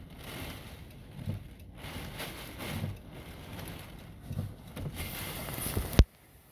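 Heavy storm rain and gusting wind heard from inside a vehicle, rain beating on the windows and mirror in an uneven rushing hiss. A sharp click about six seconds in, after which the sound cuts to near silence.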